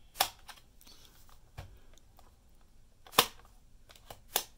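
Plastic clicks and snaps as the hinged cassette-compartment lid and front flap of a combination 35mm film camera and cassette player are pushed shut. There are three sharp clicks, the loudest about three seconds in, with a few lighter clicks and a dull knock between them.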